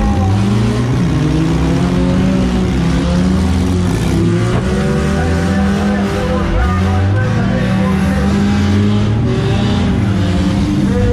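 Several demolition derby cars' engines running and revving at once, their overlapping pitches rising and falling.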